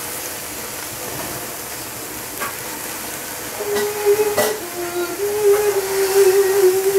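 Chinese cabbage cooking in a pot on a gas stove, giving a steady hiss of steam and sizzling with a few light clicks. From about halfway a loud, held hum comes in over it, stepping between a few notes.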